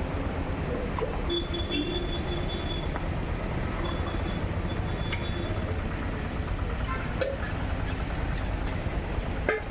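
A long knife being stroked against a sharpening stone, a run of short scraping strokes in the second half, over a steady low background rumble. There are a few scattered clinks earlier.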